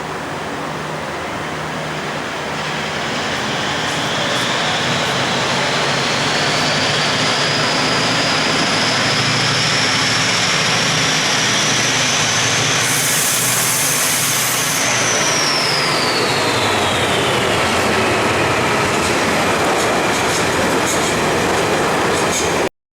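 A train running through the station without stopping. The steady rail rumble builds over the first few seconds, with a high-pitched whine that rises in pitch, peaks around the middle, then glides down. The sound cuts off abruptly near the end.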